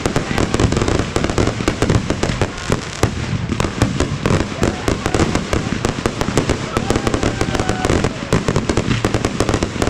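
Fireworks going off in a dense, continuous barrage of rapid bangs and crackles, with no break.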